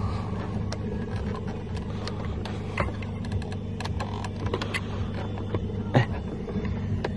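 Irregular small clicks and scrapes of a hand tool working at the spring clips that hold the airbag in a VW Lupo steering wheel, with a sharper click about six seconds in, over a steady low hum.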